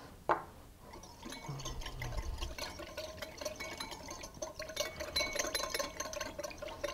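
Stainless wire whisk beating oil into vinegar in a glass bowl: rapid, steady ticking of the wires against the glass with a light ring of the bowl, starting about a second in, as the first tablespoon of oil is emulsified into a vinaigrette.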